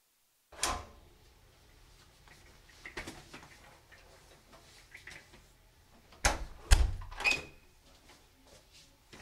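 Apartment front door opening with a click, someone coming in with a bag amid small knocks and rustles, then the door swinging shut on its overhead closer with two loud knocks about six seconds in.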